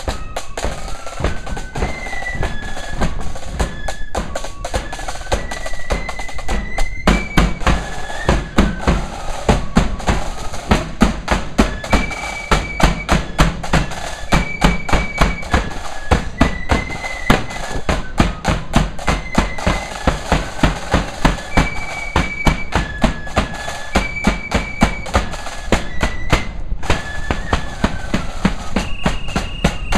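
Marching flute band playing a tune on side-blown flutes over snare drums and a bass drum beating a steady march rhythm.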